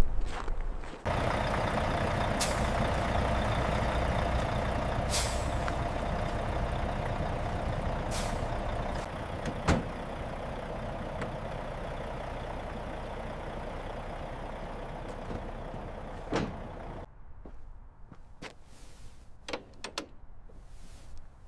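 Truck running steadily with a low rumble, with occasional sharp clicks over it. The running noise starts abruptly about a second in and cuts off suddenly about 17 seconds in, leaving only faint clicks and taps.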